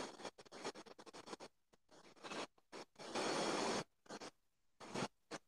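Scratchy rubbing noise picked up by a video-call microphone, coming in short bursts with one longer stretch about three seconds in.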